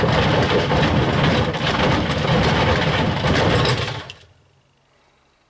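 White Knight tumble dryer drum spinning with bricks, stones and hammers inside, a loud continuous clattering and banging of the load against the metal drum. It stops about four seconds in, leaving only a faint hum.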